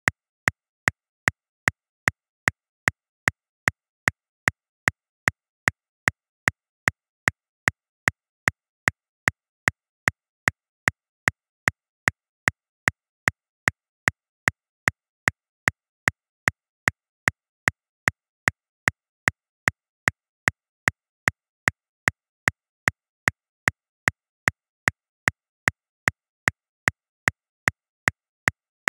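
Metronome clicking steadily at 150 beats per minute, about two and a half sharp clicks a second with silence between them.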